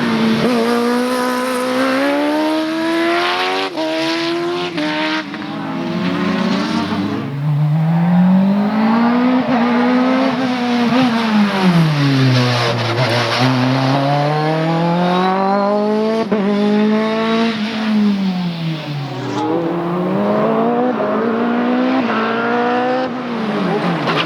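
Race car engine at high revs, its note climbing under acceleration and dropping off when the driver lifts or brakes, several times over, as the car drives a slalom course.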